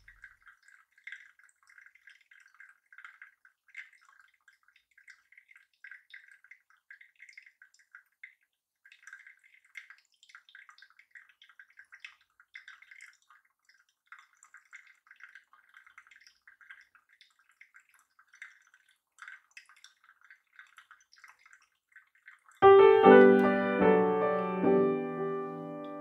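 Faint, irregular trickling of hot water poured slowly from a gooseneck kettle onto coffee grounds in a paper-lined cone dripper. Near the end, piano music starts and is much louder.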